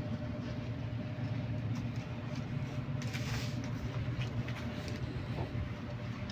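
Steady low mechanical hum of a running machine, with a brief rustle about three seconds in.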